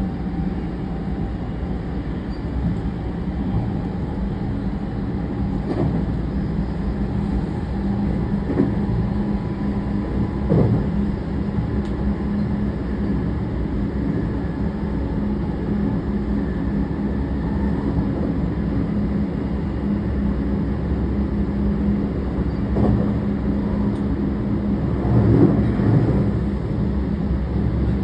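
Running noise of a JR West 321 series electric train with Toshiba IGBT VVVF traction equipment, heard in motor car MoHa 320-73: a steady rumble of wheels on rail with a constant low hum. Several short knocks from the wheels passing rail joints come through at intervals.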